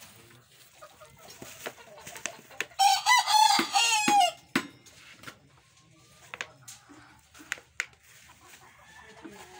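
A rooster crows once, a long call about three seconds in that is the loudest sound here, among scattered short clicks and taps.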